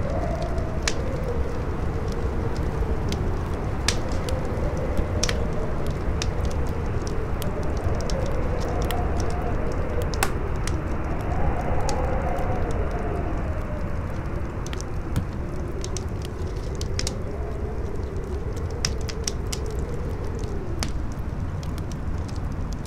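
Campfire crackling with frequent sharp, irregular pops, over strong wind howling in a wavering tone that slowly rises and falls, with a steady deep rumble beneath.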